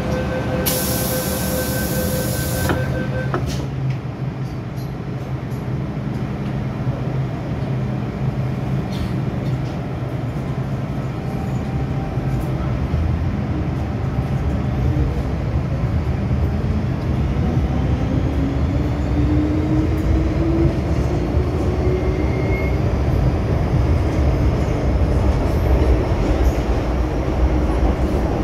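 MTR M-Train metro car pulling out of a station: a steady two-tone warning sounds for about three seconds at the start, then the train runs on with a continuous low rumble of wheels on track. From about 17 to 23 seconds in, a rising whine comes in as the train gathers speed.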